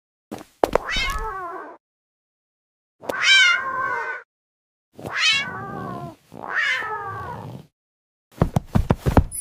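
A cat meowing four times, each drawn-out meow falling in pitch, followed near the end by a quick run of sharp knocks.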